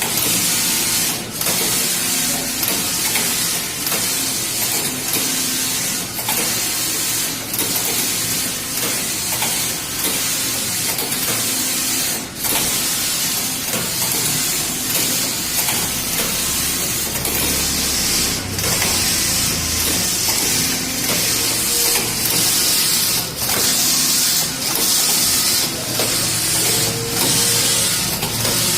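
Single-system computerised flat knitting machine running, its carriage sweeping back and forth across the needle bed with a steady hissing rattle that dips briefly every few seconds.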